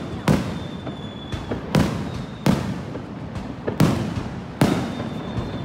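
Aerial firework shells bursting overhead in a steady volley: five loud sharp bangs, roughly one a second, each trailing off in a short rumble, with a few smaller pops between them.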